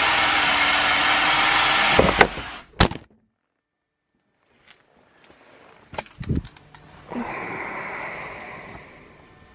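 Electric drill running steadily as it bores a hole through a steel spreader plate, stopping about two seconds in with a few sharp knocks and a clatter. The sound then cuts out completely for a moment, followed by scattered knocks and a short hiss that fades away.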